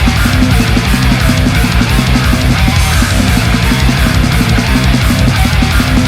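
Loud heavy metal music: distorted guitars and drums over a fast, driving beat.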